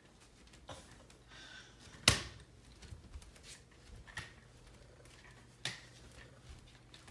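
A plastic toy doll stroller rattling and knocking as it is pushed over a tile floor: a few sharp knocks, the loudest about two seconds in.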